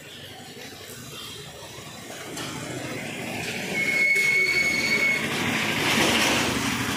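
Street traffic noise growing louder, with a high, steady squeal lasting about a second and a half, about four seconds in.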